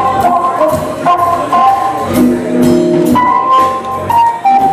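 Music with a drum beat and a melody of held notes that step from pitch to pitch.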